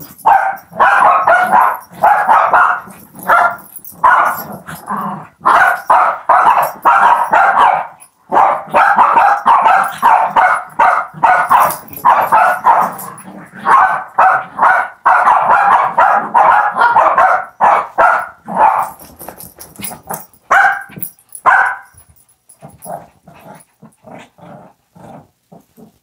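Shih Tzus play-fighting, barking and growling in rapid loud bursts, dying down to a few quieter sounds after about 22 seconds.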